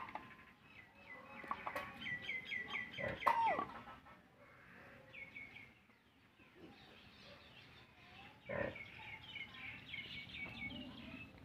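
Chickens calling: runs of short, high chirping calls, several a second, coming in bursts, with a few lower clucks.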